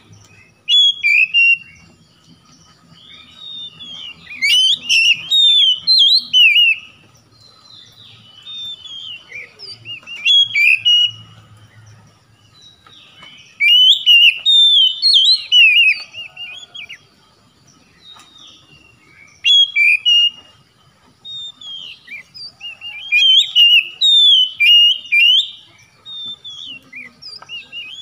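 Oriental magpie-robin (kacer) singing loudly: varied whistled phrases with quick rising and falling notes, each a second or two long, with pauses of a few seconds between them. It is the full, vigorous 'gacor' song used as a lure to get a silent kacer singing.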